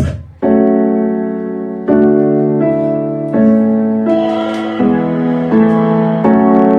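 Piano-led music played on a boAt Stone 1500 Bluetooth speaker during a sound test. A previous beat-driven track cuts off at the start, and about half a second in, sustained keyboard chords begin, changing roughly every 0.7 seconds.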